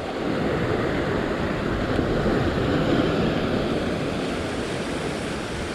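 Ocean surf washing in over a flat rock ledge, a steady rush that swells over the first few seconds and then eases slightly.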